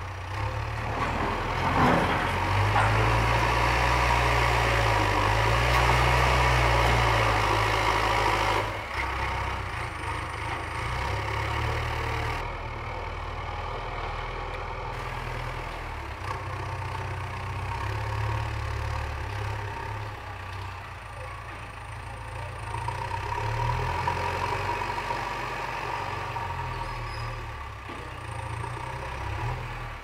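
JCB 3DX backhoe loader's diesel engine running, its speed rising and falling as the front loader works, loudest for the first several seconds, then settling to a steadier run with smaller swells.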